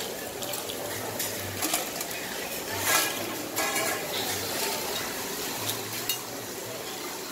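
Busy food-stall bustle: clinks and clatter of metal utensils and dishes over a steady hiss, with indistinct voices about three to four seconds in and a sharp clink just after six seconds.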